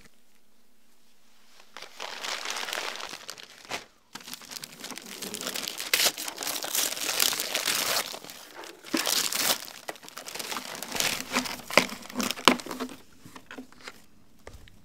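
Gift wrapping being torn open and crumpled in bouts as a present is unwrapped, with a few sharp clicks near the end.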